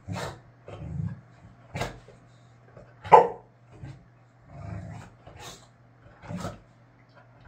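Boxer dog barking and growling in short separate outbursts, about seven in all, the loudest a little past the middle: frustrated, attention-seeking tantrum barking.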